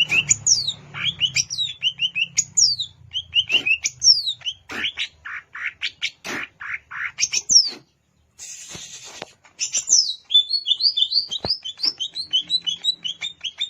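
Greater green leafbird (cucak ijo) singing: a fast, varied stream of sharp chirps and steeply falling whistles. A little past the middle the song breaks for about a second, with a brief hiss, then resumes as a quick run of repeated chirps.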